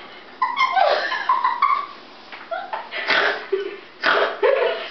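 A young woman laughing hard, in bursts with breathy gasps about three and four seconds in.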